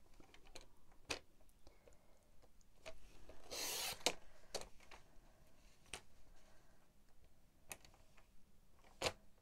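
Cardstock being slid and lined up on a paper trimmer: a few light clicks and taps spread out, and one short scraping rub about three and a half seconds in.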